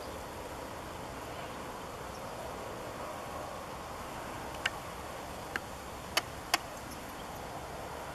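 Steady outdoor background noise with no clear source, broken by four short, sharp clicks about halfway through.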